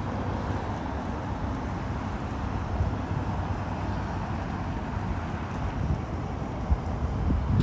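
Wind buffeting the microphone over a steady outdoor rumble.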